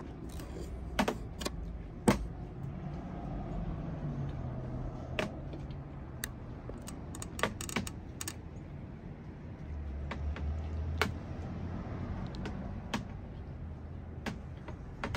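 A metal spoon clinking and scraping against a glass baking dish while ceviche is stirred, with irregular sharp clinks every second or so.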